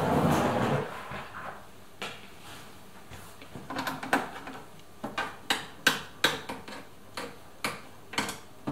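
Hand tool clicking and clinking on metal inside a Toyota RAV4 front door with its trim panel off. A rustle of handling in the first second, then a run of sharp, irregular clicks from about four seconds in, roughly two a second.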